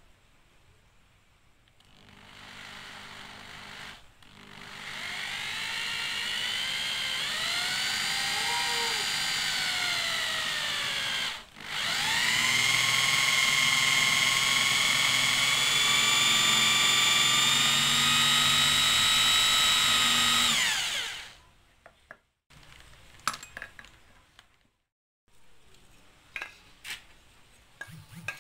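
Corded electric hand drill boring into wood. The motor whine starts about two seconds in and rises and dips in pitch as the bit loads up, then cuts out briefly. It runs again at a steady high pitch and stops a few seconds before the end. A few light knocks follow.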